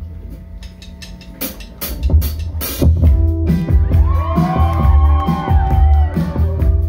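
Live rock band playing. After a quieter opening, a few drum hits come in about a second and a half in, and about three seconds in the full band starts: drum kit with a steady hi-hat beat, heavy bass, electric guitar and keyboard, with gliding lead notes over the top.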